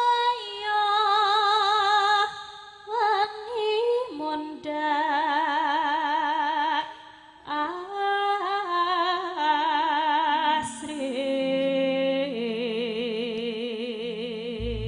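A female Javanese sinden singing a slow, ornamented tembang solo, long held notes with wide vibrato, breaking off briefly for breath a few times.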